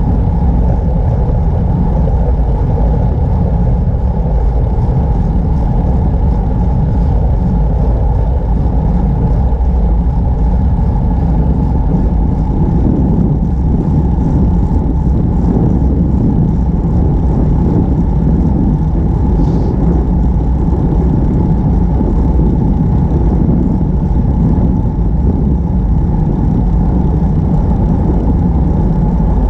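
Steady low rushing noise from riding a bicycle at speed: wind on the camera's microphone mixed with tyre rumble on the asphalt.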